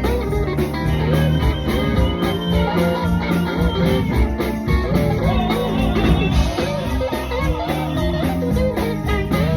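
Music led by guitar, over held low bass notes.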